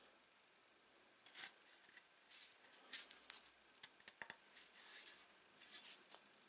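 Small handling noises: a wooden handle is pushed onto the steel tang of a drawknife, giving scattered light clicks and brief scrapes of metal and wood. Little is heard for the first second or so.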